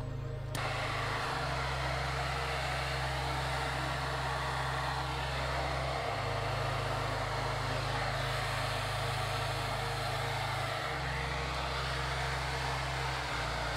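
Heat gun blowing a steady rush of hot air across wet epoxy resin, switching on about half a second in. Background music with low sustained chords plays underneath.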